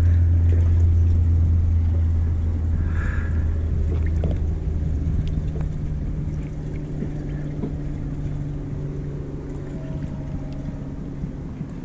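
A steady low motor hum, loudest at first and slowly fading, with a second, slightly higher hum coming in about five seconds in.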